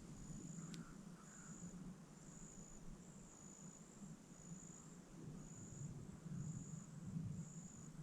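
Insect chirping faintly in short, high-pitched pulses that repeat about once a second, over a low steady rumble.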